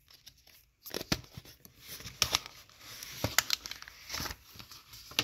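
A cardboard smartphone box being opened, its lid slid and lifted off. Rustling and scraping with several sharp clicks and taps, starting about a second in.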